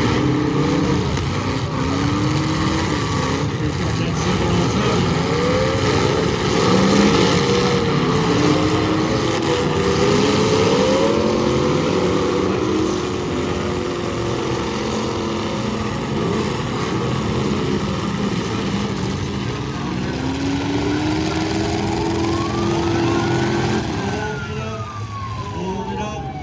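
Several big demolition derby cars running and revving at once, their engine pitches rising and falling over one another over a dense mechanical din. Near the end a single tone rises and then falls, like a siren.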